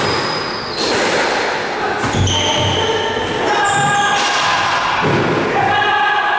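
Background music with held tones and sharp percussive hits; a heavier low thump comes about two seconds in.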